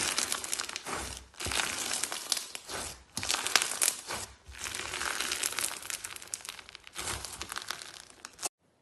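Slime being squeezed and worked by hand: dense runs of small pops and crackles in several waves with short pauses, cutting off abruptly near the end.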